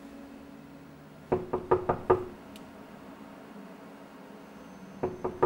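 Knocking on a door: a run of about five quick knocks a little over a second in, then a second run of knocks starting near the end.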